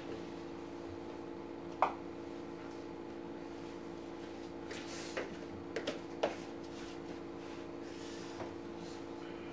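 Light wooden knocks as a block of wood is lifted out of a wooden crate and carried off: one sharp knock about two seconds in, then a quick cluster of four a few seconds later, over a steady low hum.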